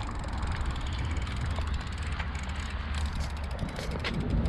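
Riding a bicycle: a steady low rumble of wind on the microphone and tyres rolling on the path, with a few faint clicks.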